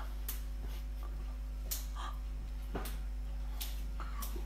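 Mouth sounds of chewing a mouthful of whole small octopuses: a handful of short, soft wet clicks spread irregularly over a steady low hum.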